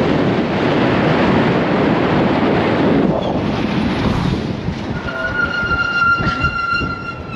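Strong gusting wind buffeting the microphone, with blowing dust and the heavy rumble of a fuel tanker truck passing close by on the highway. About five seconds in, a steady high whistle-like tone with overtones comes in and holds.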